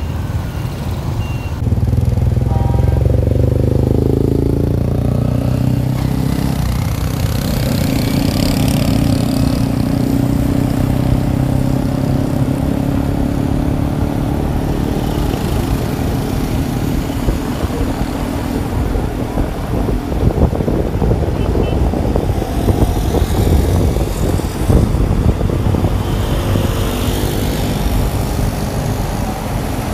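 Riding through motorbike traffic on a city street: a motorbike engine running steadily under the noise of wind and traffic, getting louder about two seconds in.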